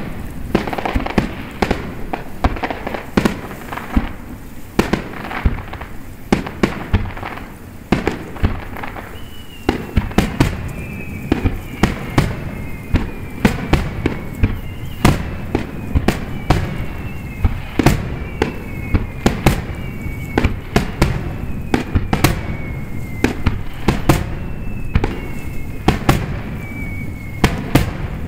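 Aerial firework shells bursting in quick succession, with many sharp bangs and crackling. From about a third of the way in, a high whistle falling in pitch is heard again and again over the bangs.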